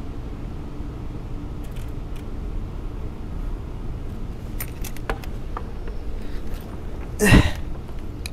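Steady low rumble of a moving escalator, with several sharp clicks about halfway through and one short, louder sound near the end.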